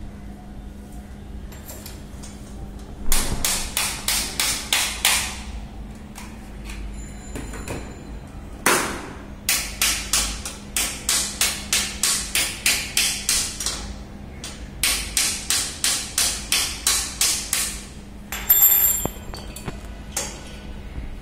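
Runs of quick, evenly spaced sharp knocks, about four a second, from small metal and plastic satellite-dish mounting parts being worked by hand, over a steady low hum.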